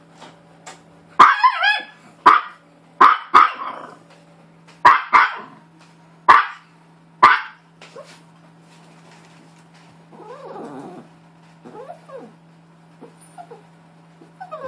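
Small dog, a Maltese, barking: about eight short, sharp barks in quick succession over some six seconds, then a few softer, lower sounds around ten to twelve seconds in.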